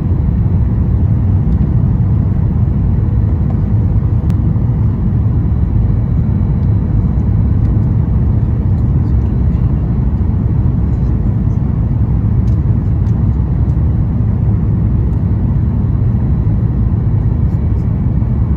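Steady low rumble of a Boeing 737 MAX 8's engines and airflow heard from inside the passenger cabin during the approach with flaps extended, with faint steady tones above the rumble.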